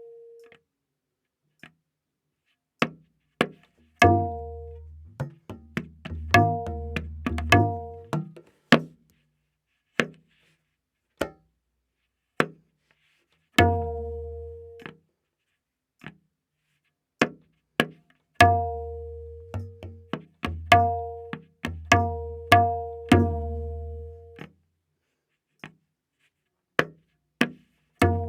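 Solo tabla playing a very slow vilambit ektaal theka, with strokes spaced about a second apart and occasional quick clusters. Ringing dayan strokes tuned to A# mix with deep bass strokes from the bayan, and there are short silences between them.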